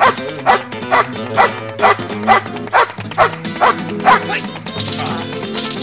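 A large dog barking repeatedly at a steady pace of about two barks a second at a helper's jute bite sleeve during protection training. The barking stops about four and a half seconds in, and background music plays throughout.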